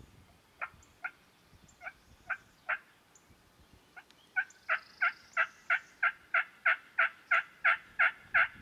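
Turkey yelps: five spaced single notes, then a steady, louder run of about thirteen yelps at roughly three a second.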